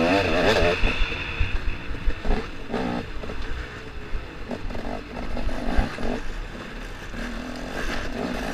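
KTM 250 XC-W two-stroke enduro engine revving up and down, hardest right at the start, with knocks and clatter from the bike over rocky ground.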